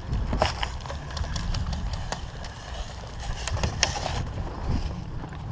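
Handling and movement noise on a gun-mounted GoPro during an airsoft game: a steady low rumble with scattered, irregular sharp clicks and knocks.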